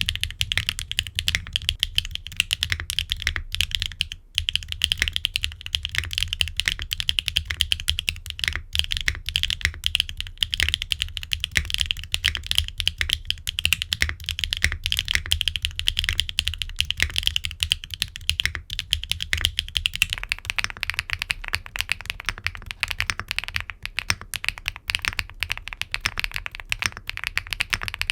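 Fast, continuous typing on a mechanical keyboard with HMX Yogrut S linear switches in a gasket-mounted aluminum case with an aluminum plate and ABS double-shot keycaps. The keystrokes come in a dense run of quick clacks, and about two-thirds of the way through the typing takes on a fuller, lower tone.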